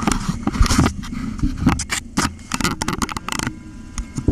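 Handling noise from the camera's microphone being picked up and moved: a quick run of knocks, bumps and scrapes that settles down about three and a half seconds in, leaving a faint steady hum.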